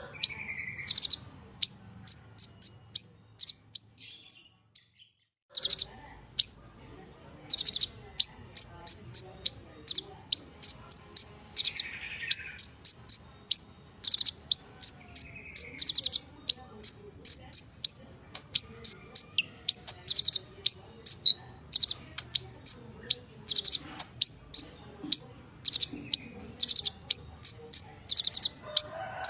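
Purple-throated sunbird (kolibri ninja) singing a rapid, loud run of sharp high chirps mixed with short buzzy trills, breaking off briefly about four seconds in before resuming.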